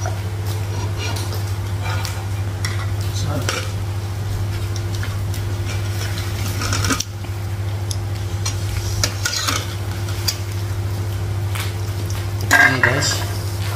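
A metal ladle stirring and scooping in a steel pot of iced fruit drink (es buah), with scattered clinks and scrapes of ladle, pot and cups over a steady low hum. A brief voice-like sound comes near the end.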